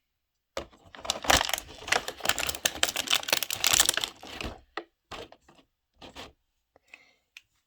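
Small plastic toy pieces and thin plastic packaging being handled, with a dense run of clicking and crackling for about four seconds, then scattered clicks.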